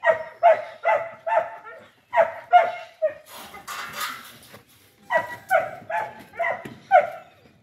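Dog barking repeatedly in quick runs of short barks, with pauses between the runs.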